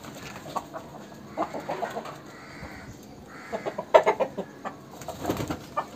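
Aseel chickens clucking in several short bouts of quick calls, the loudest about four seconds in.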